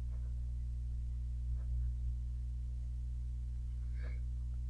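Steady low electrical hum on the recording, with a couple of faint short sounds.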